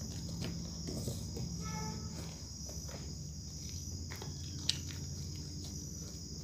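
Hands squeezing and kneading a lump of homemade slime: soft sticky squelches and scattered small clicks, with a brief squeak about two seconds in and a sharper click near five seconds. A steady high-pitched insect-like drone runs underneath.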